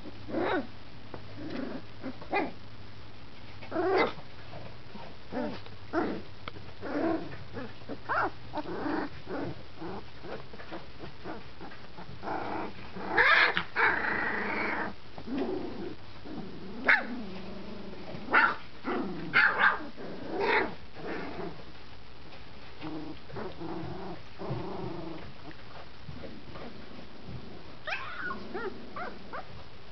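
A litter of 20-day-old puppies yipping, giving squeaky little barks and small growls as they play; these are their first attempts at barking. The calls come singly and scattered, with a louder stretch of yelping about halfway through.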